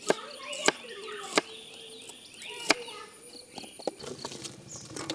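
Kitchen knife chopping bilimbi fruit on a wooden cutting board: four sharp chops at uneven spacing in the first three seconds.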